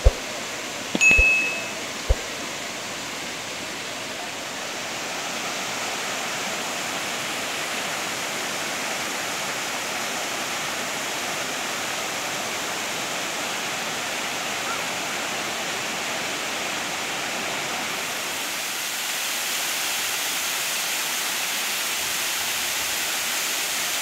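Waterfall pouring over rock ledges: a steady rush of falling water, a little louder from about five seconds in and again near twenty. A few sharp clicks and a short ding in the first two seconds.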